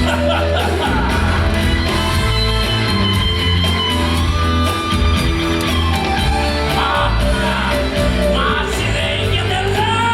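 Amplified rock-and-roll song with a steady beat and bass, a singer's voice over it and some shouting.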